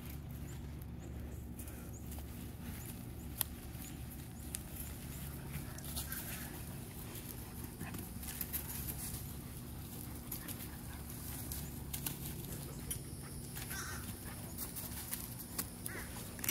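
Two dogs, a puppy and a larger dog, play-wrestling in grass, with scuffling, rustling and a few short dog noises, most of them in the last few seconds. A steady low hum runs underneath.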